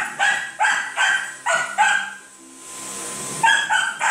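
A small dog yapping rapidly, about three high-pitched barks a second, pausing for about a second and a half, then three more barks near the end. A vacuum cleaner runs steadily underneath.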